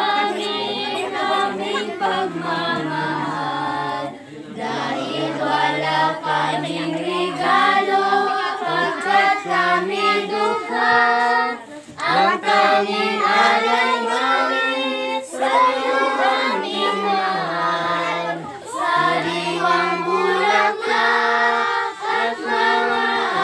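A group of children and women singing a birthday song together in unison, holding sung notes in long phrases, with short breaks about 4, 12 and 18 seconds in.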